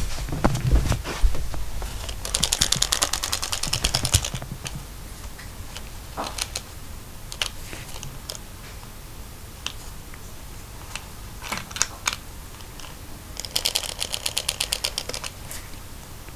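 Rapid, even clicking from a small furry toy mouse's mechanism, in two bursts of about two seconds each, with scattered taps and handling knocks between them. Low thumps come near the start.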